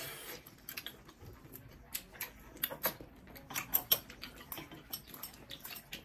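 Close-miked mukbang eating: chewing and lip smacking on octopus and rice cakes, heard as a quick, irregular run of wet clicks and smacks, with now and then a light clink of utensils.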